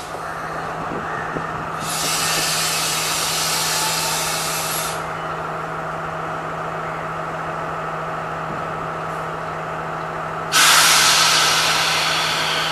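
A CRRC-built Class S14 diesel multiple unit standing with its engine idling in a steady hum. Compressed air hisses loudly twice: once about two seconds in, lasting about three seconds and cutting off suddenly, and again starting near the end.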